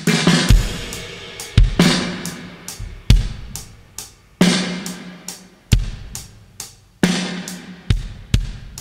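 A recorded drum-kit stem of kick, snare and cymbals playing a slow beat, each hit ringing out, heard through a Tube-Tech CL 1A valve compressor whose ratio and attack/release settings are being varied to show its range of compression.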